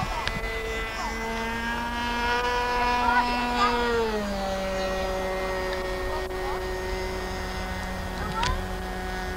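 A steady engine drone whose pitch creeps up slightly, then drops a step about four seconds in and holds lower. Faint distant voices can be heard now and then.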